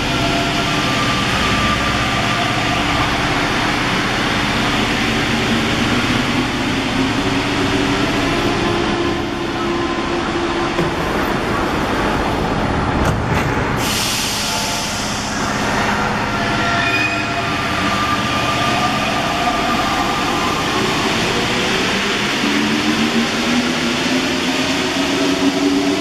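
Paris Métro Line 4 rubber-tyred train in the station: a steady, loud rumble with whining tones that rise in pitch as the train gets moving. A sudden hiss comes about fourteen seconds in, and the train runs past near the end.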